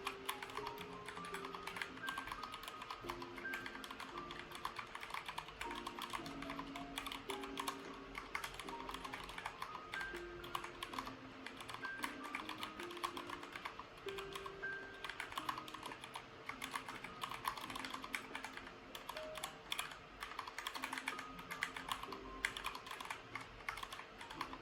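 Continuous fast typing on an ErgoDox EZ split ergonomic keyboard, a dense irregular patter of key clicks, over background music with held melodic notes.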